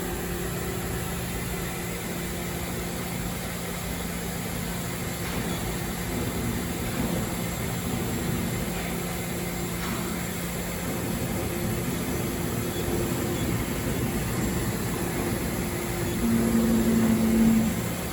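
Mori Seiki NT1000 CNC multitasking lathe running: a steady machine hum whose tone changes partway through, with a louder, steady whine for about a second near the end.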